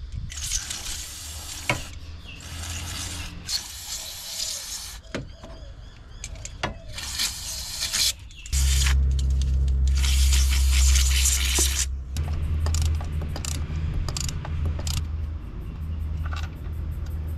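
Aerosol can of automotive electronic cleaner sprayed onto ignition coil and spark plug connectors in a series of short hissing bursts. A steady low hum comes in about halfway through.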